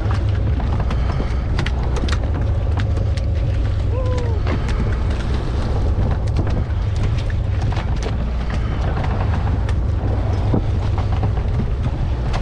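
Steady low rumble of the sportfishing boat's engine, with scattered sharp clicks throughout. A short squeak falls in pitch about four seconds in.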